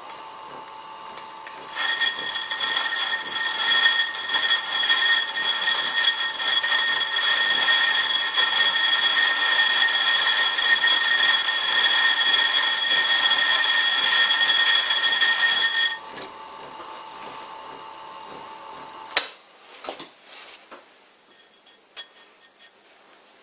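A shop vacuum used as a dust extractor runs with a loud, steady whine from about two seconds in until about sixteen seconds, over a vintage Karger lathe turning a cast-iron faceplate with a high-speed-steel tool bit. The lathe runs on a few seconds longer, then stops suddenly, leaving only faint clicks.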